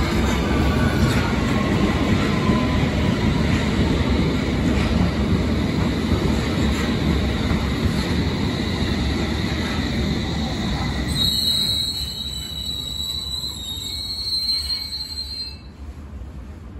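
London Underground Metropolitan line S8 Stock train running into the platform, its wheels rumbling on the rails and its motor whine falling in pitch as it slows. About eleven seconds in, a high steady brake squeal sets in as it draws to a stop, cutting off about a second before the end.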